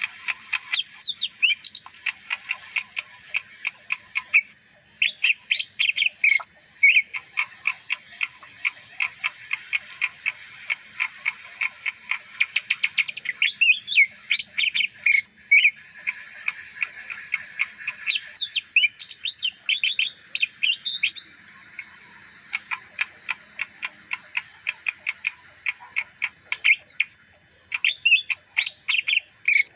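A leafbird singing a long, fast, varied song of chirps, short whistled sweeps and rapid clicking notes, with a brief pause a little past the middle.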